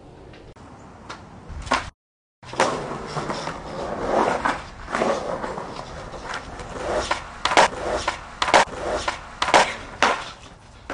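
Skateboard wheels rolling over concrete, with several sharp clacks of the board hitting the ground, four of them loud in quick succession near the end.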